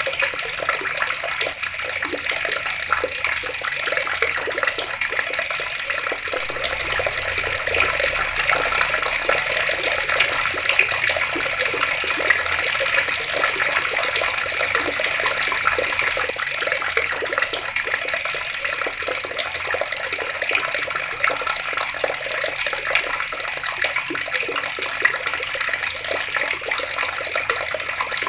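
Water flowing steadily from a tap, an even, unbroken splashing rush.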